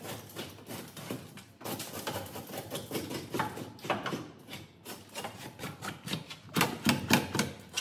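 Rummaging inside a wrecked Honda Civic's cabin: irregular rustling, scraping and clattering of loose debris and trim, with a few louder knocks near the end.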